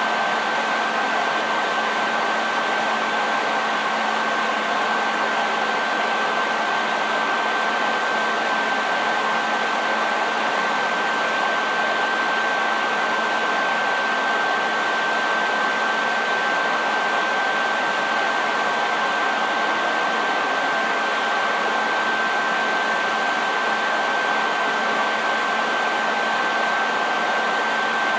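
Hair dryer running steadily, a constant rush of air with a steady high whine from the motor and fan and a low hum underneath.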